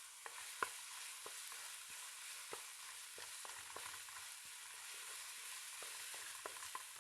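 Onion, tomato and ginger-garlic paste sizzling in hot oil in a kadai, with a utensil clicking and scraping against the pan at irregular moments as the masala is stirred.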